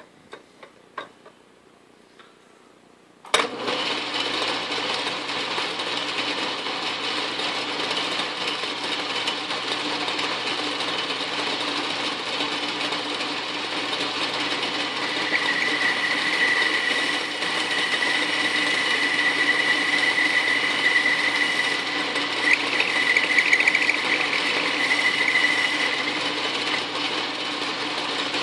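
Atlas metal lathe switched on about three seconds in and running steadily with its chuck spinning, after a few light clicks. A thin high whine joins for about ten seconds in the second half.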